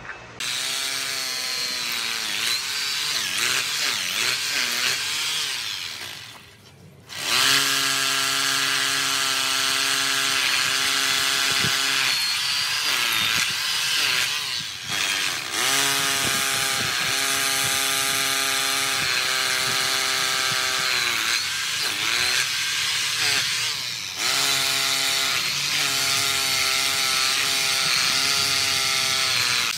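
Corded rotary hammer drill boring into a brick pillar, running in long runs, its motor pitch rising as it spins up at each start. It stops for about a second some six seconds in, then runs on with a few short let-offs.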